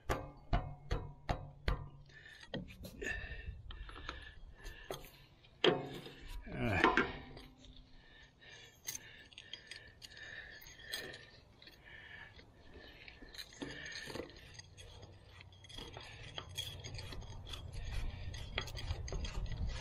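Metal hand tools clinking against the fuel lines and fittings of a 6BT Cummins diesel engine: a quick run of sharp clicks at the start, then scattered clinks. Two short falling squeals near the middle are the loudest sounds.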